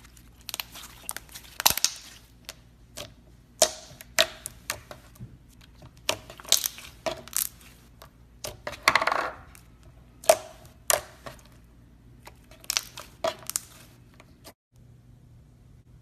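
Slime being squeezed and poked, with irregular sharp pops and crackles as air bubbles in it burst, some in quick clusters and a longer crackling stretch about nine seconds in.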